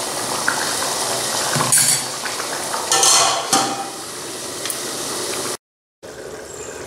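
Curry simmering with a steady bubbling hiss in an aluminium pot, a steel spoon clinking and scraping against the pot's rim, then a steel plate lid clattering onto the pot about three seconds in.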